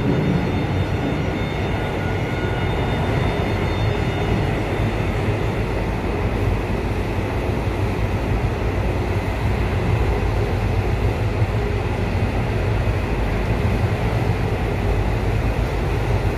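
São Paulo Metro Line 2 train running between stations, heard from inside the passenger car: a steady rumble of wheels and motors. Faint high whining tones fade away in the first few seconds.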